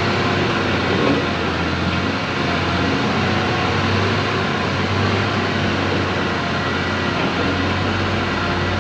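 Heavy diesel construction machinery running steadily, a constant low engine hum under a broad mechanical noise.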